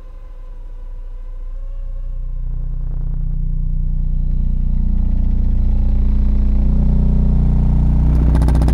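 30 Hz test tone played through a 12-inch NVX VCW122 subwoofer in a sealed box with Earthquake Slaps M-12 passive radiators, driven toward about 2,000 watts. The deep drone swells steadily louder, with a buzz of overtones on top, during an SPL burp test.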